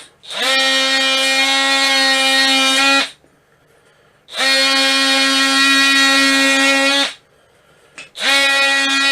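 Small power tool's motor spinning up to a steady high whine in three runs of about three seconds, three seconds and one second, each starting with a quick rise in pitch. It is roughing up the surface of a plastic part, which heats up from the friction.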